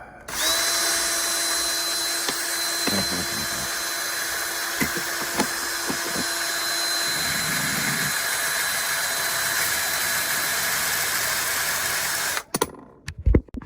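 Small handheld power tool motor running steadily on a die-cast toy car for about twelve seconds, then cutting off suddenly. A few light knocks come as it works the part.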